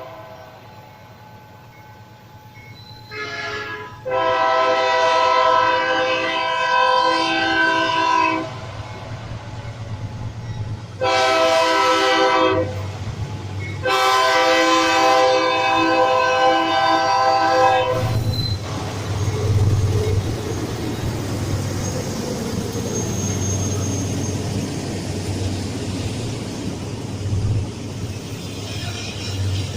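Locomotive horn sounding four blasts, a short one, a long one, a shorter one and a long one, each a chord of several steady tones. After the last blast the low rumble of the train running past takes over.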